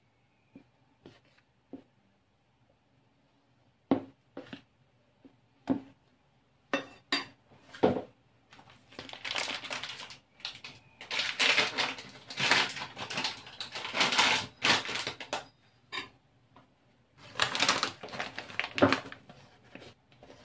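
Metal spoon stirring dry flour and cornstarch in a glass bowl, clinking and scraping against the glass. A few scattered clinks come first, then long stretches of steady scraping start about halfway through and come again near the end.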